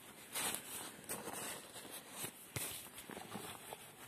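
A few irregular footsteps scuffing on bare soil.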